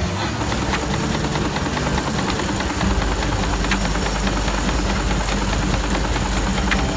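Antique farm steam engine running with its flywheel turning: a steady low rumble with rapid light mechanical clicks, the rumble growing stronger about three seconds in.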